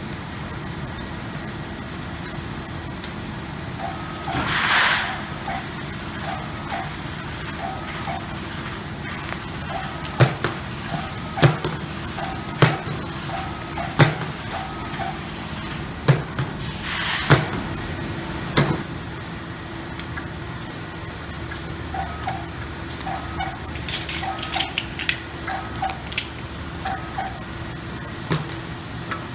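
Automatic wrap-around labeling machine running, labeling bottles and vials at about 70 a minute: a steady conveyor and motor hum with light regular ticking from the label applicator. A run of sharp knocks a little over a second apart comes through the middle, and there are two short hisses, one near the start and one in the middle.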